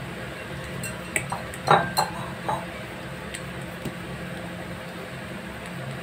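A few knocks and clinks of a metal pizza pan as a ball of dough is set into it, the loudest a little under two seconds in. After that only a steady background hum remains while the dough is pressed out by hand.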